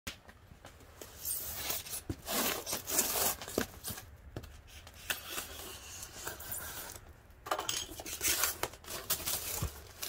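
A knife slitting the packing tape on a styrofoam box, with scratchy tearing and scraping in two spells and a few sharp clicks, as the styrofoam lid is worked loose and pulled open.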